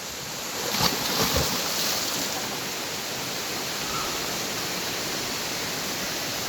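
Steady rush of falling water from a waterfall, with a few brief low thumps about a second in.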